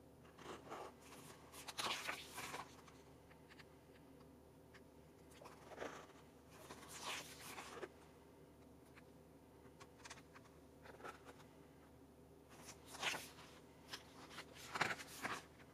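Pages of a thick paper album booklet being turned by hand: a series of short papery swishes and rustles spaced a few seconds apart, with a busier cluster near the end.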